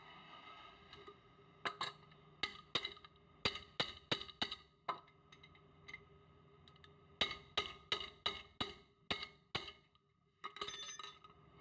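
Ratchet wrench clicking in two runs of sharp, evenly spaced clicks, about three a second, as the brake caliper bolt is tightened.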